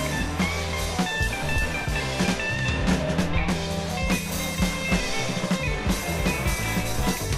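Rock music with a drum kit and guitar over a held bass line.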